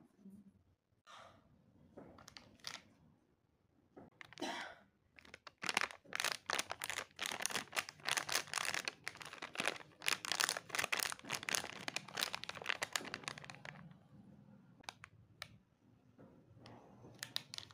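Crinkling of a plastic Chupa Chups Bites candy packet handled in the hands: a few scattered crackles at first, then a long dense run of crinkling while the packet is squeezed and turned, and a few more crackles near the end.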